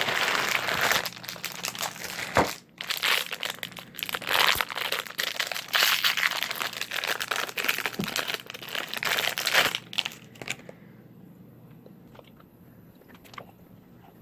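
Plastic candy wrapper crinkling as it is handled and opened, for about ten seconds, then stopping, with only a few faint ticks after.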